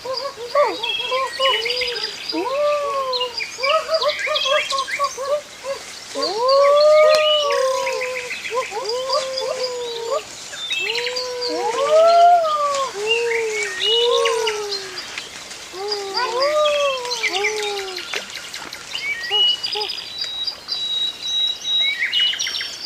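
Birds calling: many overlapping calls that rise and fall in pitch, each lasting about half a second, under quick high chirps.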